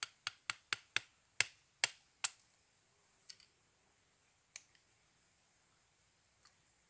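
A quick run of about eight sharp clicks in the first two seconds, then three fainter single clicks spread out after them, as hands work at a stone campfire ring.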